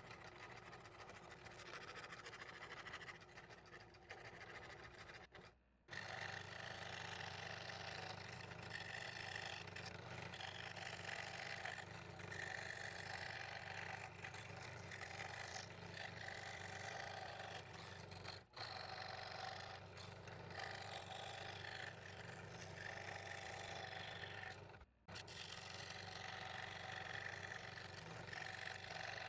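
Scroll saw running, its blade cutting Baltic birch plywood in a steady rasp over the motor's low hum, with a few short breaks.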